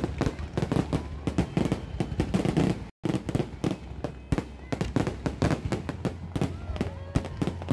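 Fireworks going off in quick succession: a dense run of bangs, pops and crackles, many per second, with the sound cutting out for an instant about three seconds in.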